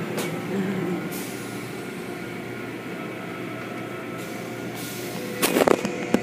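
Automatic car wash heard from inside the car: steady hum of the wash machinery with foam-soaked cloth strips swishing over the hood and roof, and a loud slapping burst about five and a half seconds in as the strips hit the windshield.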